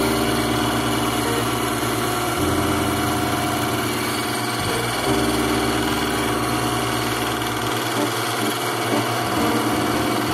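Electric cuticle-nipper sharpening machine running steadily, its motor humming with a grinding hiss as the steel jaw of a pair of cuticle nippers is held against the grinding wheel to raise a burr along the cutting edge.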